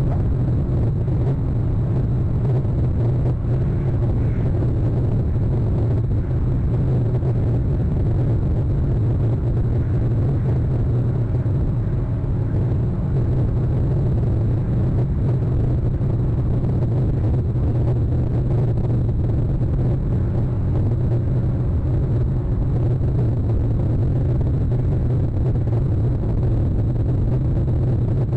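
Steady low rumble on the nest-camera microphone, even in level throughout, with no distinct calls or knocks.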